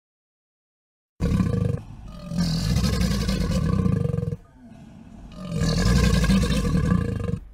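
Crocodile grunting: deep, rough grunts starting about a second in, coming in three stretches with short dips between them.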